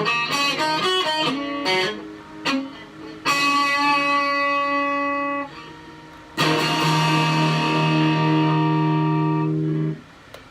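Stratocaster-style electric guitar played on its middle pickup for a tone test: a quick run of picked notes, then two chords each struck and left to ring, the second one cut short near the end.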